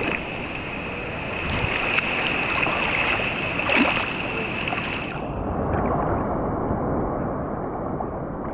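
Rough sea surf and churning water, a steady rushing noise; about five seconds in it turns duller as the higher sounds drop away.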